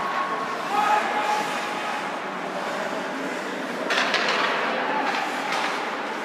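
Ice hockey being played in an indoor rink: skates scraping the ice and sticks working the puck over a steady hall hum, with a player's shout near the start. About four seconds in comes a louder scrape and clatter.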